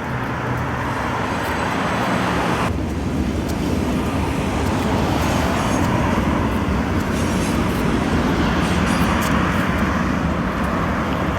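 Steady vehicle road noise, a continuous rushing that slowly grows louder.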